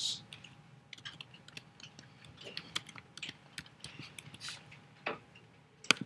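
Scattered small clicks and taps from handling a computer, with one sharp, loud click near the end as a menu is clicked open. A faint steady tone hums underneath.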